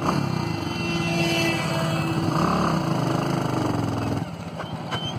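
Motorcycle engine running steadily while riding along. The engine eases off and goes quieter about four seconds in.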